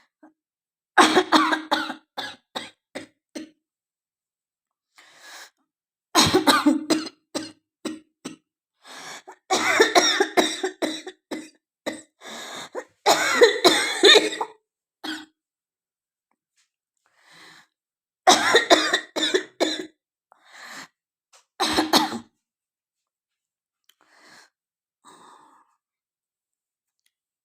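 A woman coughing in repeated fits: several bouts of rapid, harsh coughs with short pauses between, ending in a few faint coughs.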